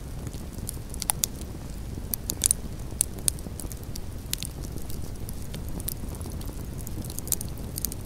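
Wood campfire crackling: irregular sharp pops and snaps, a few louder ones in the first half, over a steady low rumble.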